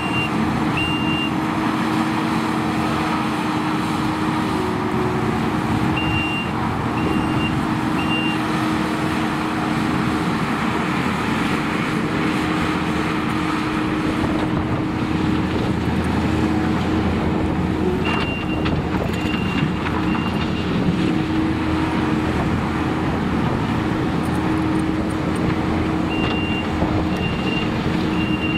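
Kubota SVL95-2 compact track loader's diesel engine running steadily under work, with a constant hum. A reversing alarm beeps in short runs of three or four, about once a second, several times over.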